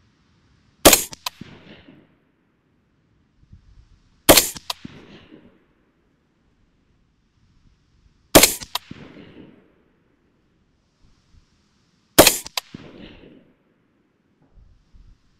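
Unsuppressed 11.5-inch Griffin Mk2 5.56 AR-15 short-barrelled rifle firing four single shots about four seconds apart. A sharp second crack follows each report a fraction of a second later, then a short fading tail.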